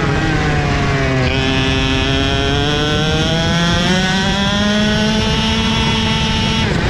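Two-stroke 125cc KZ shifter kart engine at racing speed, heard onboard. The revs sag, jump up about a second in, then climb steadily under full throttle for several seconds before dropping sharply at a gear change near the end.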